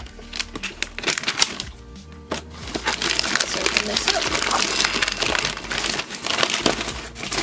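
Thin plastic poly mailer bag crinkling and rustling as it is torn open and a cardboard-covered sketchbook is pulled out of it, loudest and most continuous from about three seconds in. A few sharp clicks come in the first second and a half.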